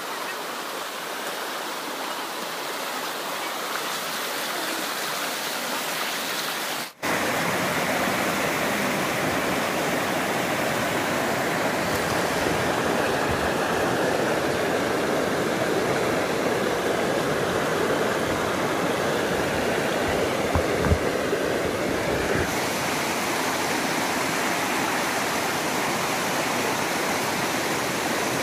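River water rushing steadily over a bamboo-slat fish trap and a net. It cuts out for an instant about seven seconds in and comes back louder; a single short knock about twenty-one seconds in.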